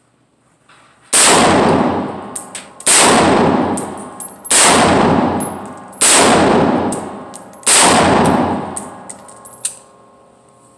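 Five shots from a Smith & Wesson M&P15 AR pistol with a 7.5-inch barrel in 5.56/.223, fired slowly at a steady pace about a second and a half apart. Each shot is very loud and rings out in a long echoing tail, with light clinks between the shots.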